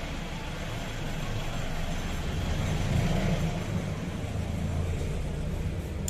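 Low rumble of a motor vehicle running, with road-traffic noise; it swells louder about halfway through, then settles.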